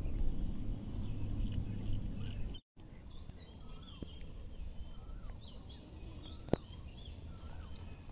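Low rumbling noise for about two and a half seconds, then a sudden cut to quieter outdoor ambience in which birds chirp and whistle repeatedly. One sharp click comes about six and a half seconds in.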